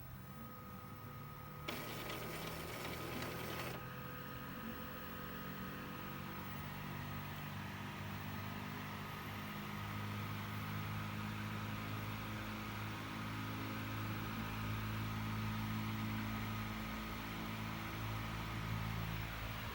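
Epson L120 inkjet printer's motors running through a long first start-up cycle after it has sat unused for a long time, a steady mechanical hum whose pitch shifts slowly, with a harsher, noisier stretch of about two seconds near the start.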